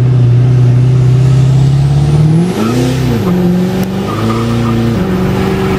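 Ford 6.7 Powerstroke V8 turbo diesel with a 66 mm turbo, heard from inside the cab during a brake-boosted launch. The engine holds a steady note, then about two and a half seconds in its pitch climbs and falls as the tires spin, before it settles on a higher steady note. A high turbo whistle rises over it.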